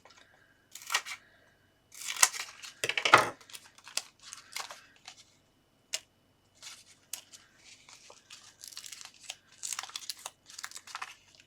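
Adhesive foam craft pads being handled, pulled off their sheet and cut down: an irregular run of short tearing and crinkling sounds with small clicks, the loudest about two to three seconds in.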